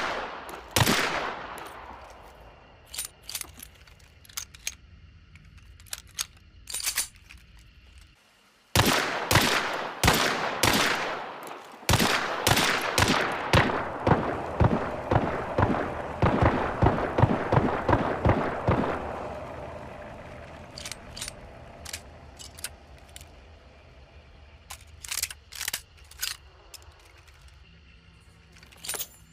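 Pistol gunshots with echoing tails: a single shot, a few scattered shots, then a rapid string of about three shots a second lasting some seven seconds, followed by more scattered shots.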